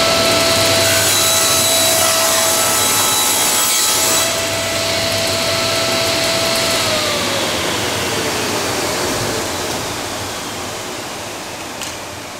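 Table saw ripping a board: the blade cuts through the wood for about four seconds, then runs free with a steady whine. The whine falls in pitch and fades as the saw is switched off and the blade spins down.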